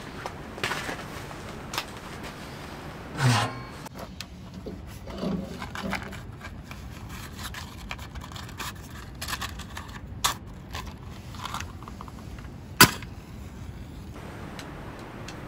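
Scattered knocks and clunks of a small metal wood stove being made ready, its door opened and split kindling set in the firebox, with a heavier thud about three seconds in. Near the end a single sharp strike, a match being lit.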